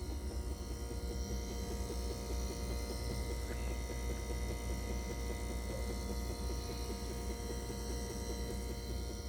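Refrigerator running with a steady low hum and a rapid 'da-da-da' rattling tick over it, an abnormal noise from the fridge.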